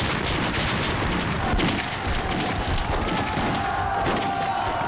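Battle gunfire: dense, overlapping volleys of rifle and machine-gun fire, sudden and loud from the first instant, with a faint high held tone underneath.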